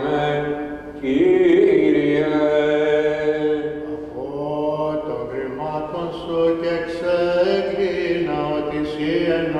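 Orthodox priests chanting a slow Byzantine-style hymn in long, drawn-out notes. The chant dips briefly about a second in, then comes back louder.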